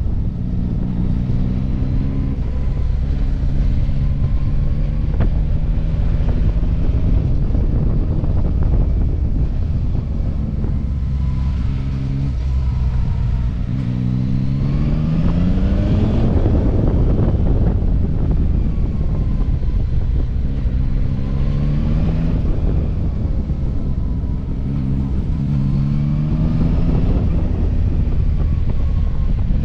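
Yamaha Tracer 9 GT's 890 cc three-cylinder engine under way, its note holding steady and then rising in pitch several times as the bike accelerates. Steady wind and road rush sits under it.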